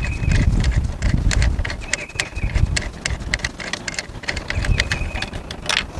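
Quick, irregular metallic clicks and ticks as a nut is run off a threaded stud at the battery with a 13 mm deep-well socket turned by hand. A steady low rumble sits under the clicks.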